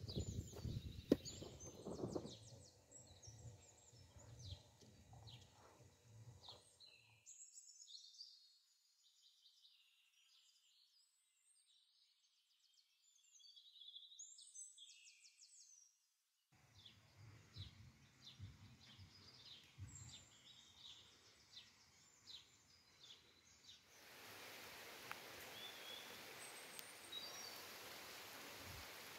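Small birds chirping and singing outdoors, faint and scattered, with brief handling knocks at a metal pot in the first couple of seconds. About five seconds before the end, the steady rush of shallow water flowing over stone paving joins the birdsong.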